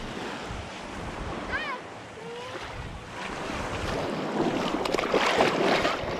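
Small surf waves washing up on a sandy beach, with wind buffeting the microphone. From about three seconds in it grows louder, with water splashing around a fish held by hand in the shallow wash.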